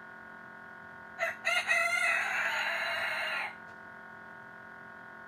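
A rooster crowing once, starting about a second in: two short notes, then a long held note of about two seconds that cuts off sharply. A steady hum runs underneath.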